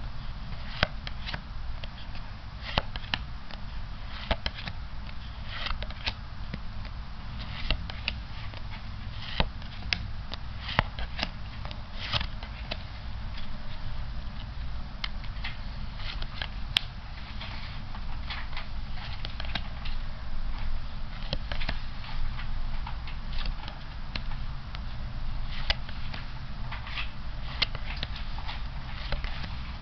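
A deck of playing cards being handled one card at a time, giving irregular light clicks and snaps as cards are slid off the deck and laid down, over a low steady hum.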